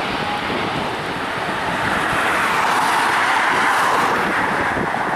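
Dash 8 turboprop airliner rolling along the runway, its engines and propellers making a loud, steady rush that swells a little partway through as it passes.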